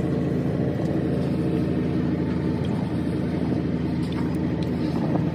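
An engine running steadily at an even speed, with a rapid, regular pulse and no change in pitch.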